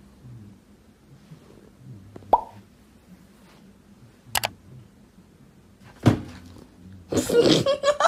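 Low steady room hum broken by three short sharp clicks about two seconds apart, then a person bursting into laughter near the end.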